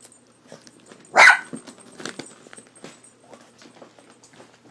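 A dog barks once, sharply, about a second in, a fearful bark at the cat picture on a cat food bag; faint rustles and taps follow.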